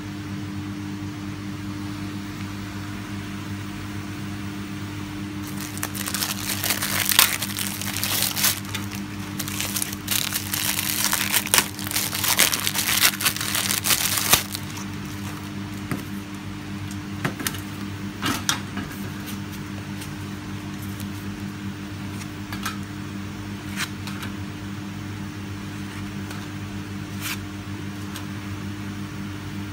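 Plastic wrapping on a pack of pappadoms crinkling and tearing as it is opened, dense and loudest from about 6 to 14 s, over a steady low hum. Afterwards a few light clicks as the dry, uncooked pappadom discs are separated and laid on a steel tray.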